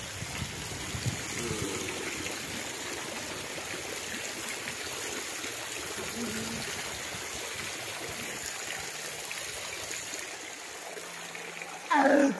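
Water pouring steadily from a long row of spouts in a stone wall and splashing onto the ground and onto a person washing under them. A short loud voice cuts in near the end.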